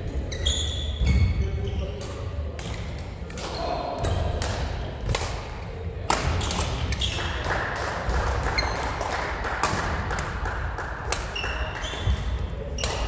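Badminton rackets striking a shuttlecock, sharp hits scattered throughout, with court shoes squeaking briefly on the wooden floor and voices murmuring in the background.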